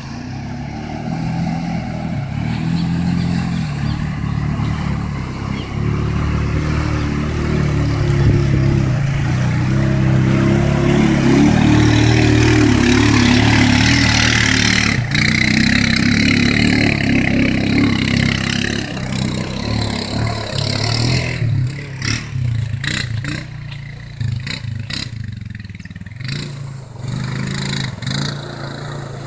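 Honda FourTrax 420 ATV's single-cylinder engine running under varying throttle as the quad ploughs through a shallow river, with water splashing and spraying. It grows loud as it passes close in the middle, then fades as it pulls away.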